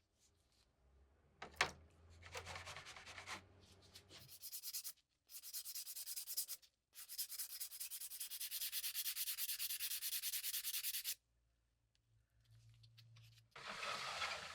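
Sanding, an abrasive rubbed in quick, even strokes, in several runs of a few seconds each with short pauses between. The longest run comes in the middle.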